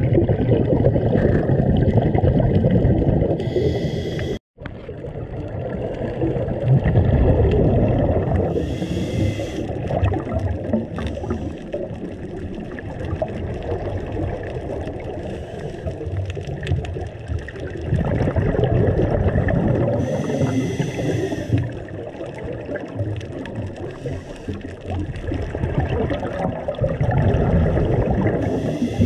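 Scuba regulator breathing heard underwater: a short high hiss on each of about four inhalations, with a low bubbling rumble of exhaled air and water throughout.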